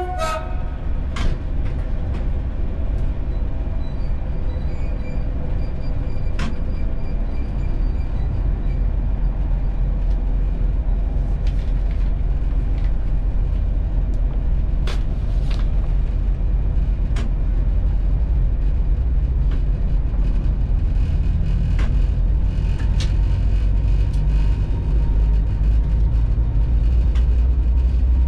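Steady low rumble of a locomotive heard from inside its cab, with a few scattered sharp clicks and knocks. The rumble swells slightly in the last third.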